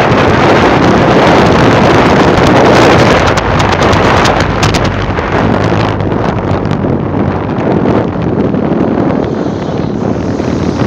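Heavy wind buffeting the microphone while moving fast along a road, over the rumble of the vehicle carrying it. Loudest for the first three seconds, then easing a little.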